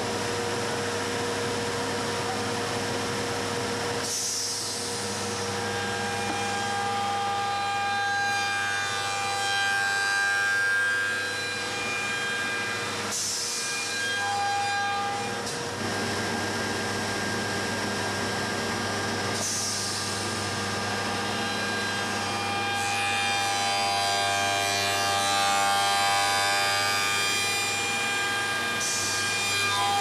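US Concepts Hauncher notching machine running, its cutters whining over a steady motor hum as it cuts finger-joint notches in the ends of wooden beehive box boards. Four short bursts of hiss come several seconds apart.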